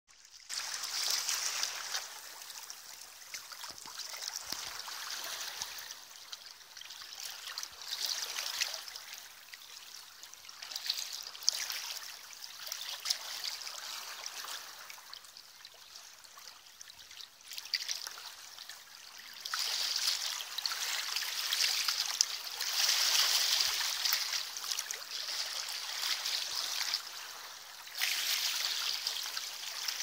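Small waves of a calm Baltic Sea lapping and trickling around shoreline rocks. The wash swells and falls back every few seconds.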